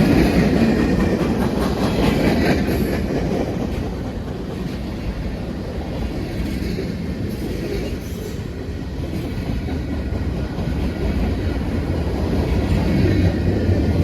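Freight cars of a manifest train rolling past with a steady rumble, wheels clicking over the rail joints; the sound eases in the middle and swells again near the end.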